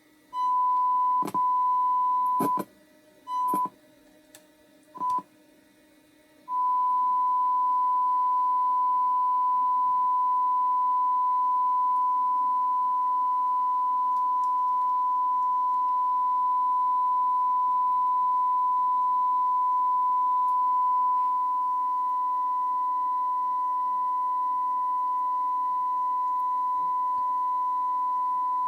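A steady pure test tone from a DAT check tape playing back on a Tascam DA-P1 DAT recorder. During the first six seconds the tone cuts in and out several times with sharp clicks, then it holds unbroken.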